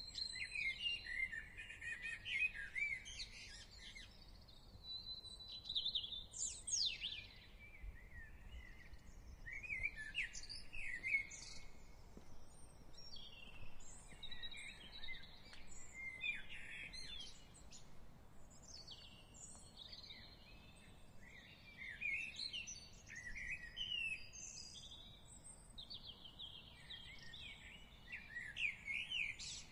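Several songbirds singing and calling throughout, in overlapping short chirps, trills and quick rising and falling notes, over faint low background noise.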